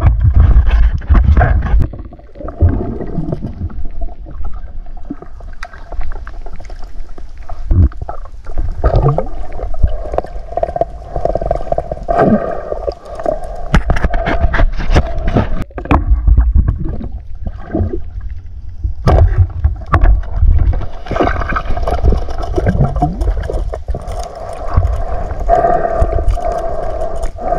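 Muffled underwater sound of a swimmer moving through water: gurgling and sloshing with irregular low knocks and bumps against the camera, under a steady hum.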